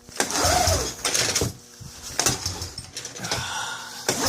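ODES 400 ATV engine turned over by hand with the recoil starter rope, with a compression tester in the spark plug hole. The pulls come as repeated bursts about every one and a half seconds.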